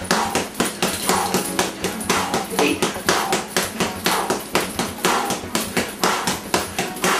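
Boxing gloves punching a hanging Everlast heavy bag in quick, steady combinations, about three thuds a second.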